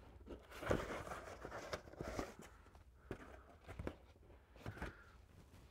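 Cardboard mailer and paper being handled: rustling and crinkling, with a few light taps and clicks, busiest in the first couple of seconds.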